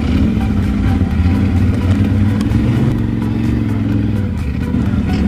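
ATV engine running steadily as the quad is ridden over rough off-road ground, its pitch shifting slightly with the throttle.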